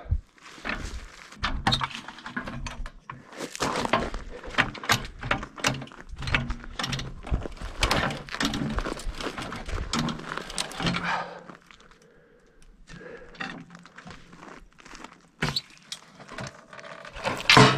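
Hydraulic floor jack pushing a chained-down steel door piece up against a wooden block to bend the warp out of it, with rapid clanks, knocks and chain rattles for about eleven seconds. It then goes quieter with scattered knocks, and there is one loud clank near the end.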